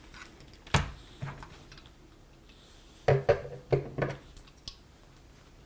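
Clamp-on headphone hanger and headphones being handled: one sharp knock a little under a second in, then a quick run of four or five knocks and clacks around three to four seconds in.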